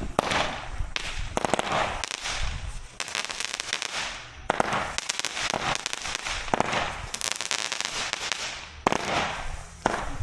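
Consumer multi-shot firework cake going off: a rapid run of sharp pops and bangs with crackling bursts between them.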